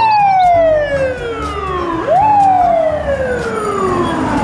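Fire truck siren wailing: a long falling tone, a quick wind back up about two seconds in, then a second slow fall.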